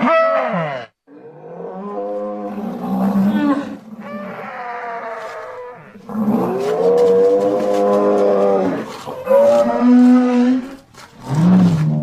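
Stegosaurus creature sound effect made from stegosaurus and woolly rhinoceros sounds: a series of about six pitched, drawn-out bellowing calls, some bending in pitch, the longest and loudest one in the middle.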